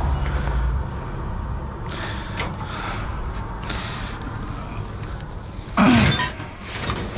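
Scrap metal being handled: a few light clinks and knocks, then a louder clatter about six seconds in.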